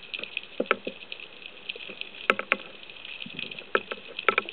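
Underwater handling noise picked up by a camera mounted on a speargun: scattered clicks and knocks over a steady crackling hiss, with two sharp clicks in quick succession about two seconds in.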